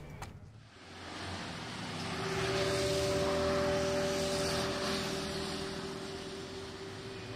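A passing vehicle heard as a broad rush of road noise that swells to a peak a few seconds in and then slowly fades, with two steady humming tones under it from a couple of seconds in.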